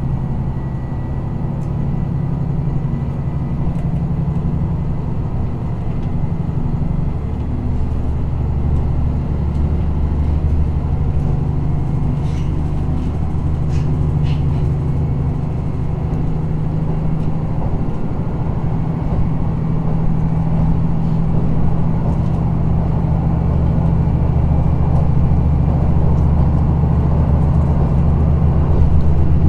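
KiHa 54 diesel railcar heard from inside the passenger car while running: a steady low diesel engine drone with running noise, growing slightly louder over the stretch, and a few faint clicks about midway.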